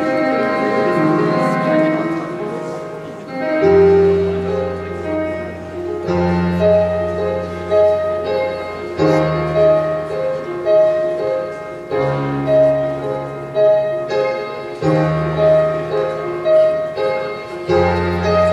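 Solo piano playing a slow piece: a low bass note held under each chord, changing every three seconds or so, beneath a high note repeated about once a second.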